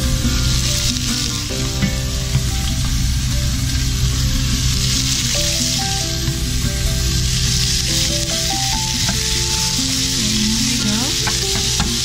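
Pieces of pork sizzling steadily as they brown over high heat in a hot pot, stirred with a spoon, with background music playing.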